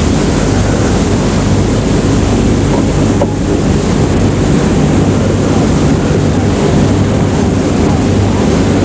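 Loud steady rushing noise, like strong wind or surf, with a faint low hum beneath it.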